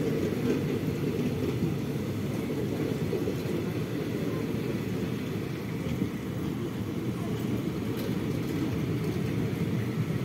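Steady rumble of a passenger train's sleeper coaches rolling past at close range on the adjacent track, wheels running on the rails.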